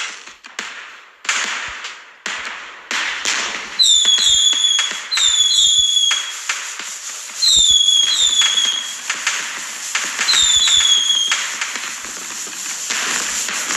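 Consumer fireworks going off: a rapid run of sharp bangs and crackles, with pairs of short whistles that dip slightly in pitch, repeating four times in the middle. Near the end it becomes a denser crackling hiss.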